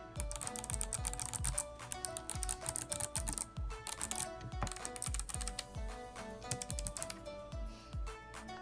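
Rapid typing on a mechanical keyboard fitted with Kailh Box Jade clicky switches, keystrokes clicking in quick runs, densest in the first half.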